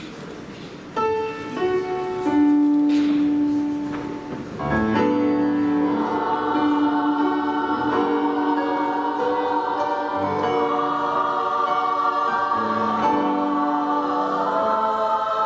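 School choir singing a wordless opening on held notes. Single lines enter one after another from about a second in, and the full choir joins on sustained chords about five seconds in.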